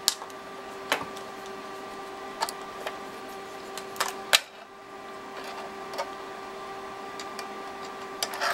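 Scattered sharp clicks, about seven at uneven spacing with the loudest a little past four seconds, from an oscilloscope probe and its BNC connector being handled and clipped on. Under them runs a steady hum with several fixed pitches.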